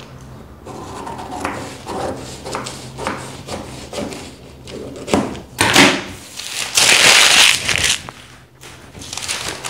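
Scissors cutting through a paper sewing pattern, then the large paper sheets rustling and sliding across the table, loudest about seven seconds in.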